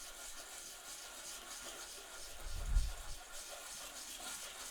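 Sandpaper rubbing on a wooden chess piece: a steady scratchy hiss, with one low thump about two and a half seconds in.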